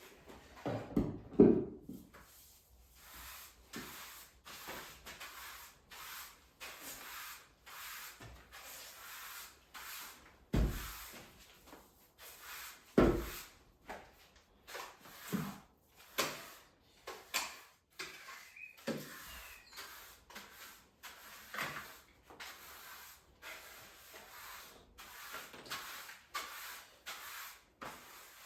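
A run of knocks, clatters and rustles from household objects being handled and set down, with louder thuds about a second in, at about ten seconds and at about thirteen seconds.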